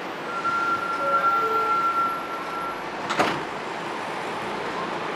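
New York City subway train at the station: a steady high-pitched squeal lasting about two and a half seconds over a low background, then a single sharp bang a little after three seconds in.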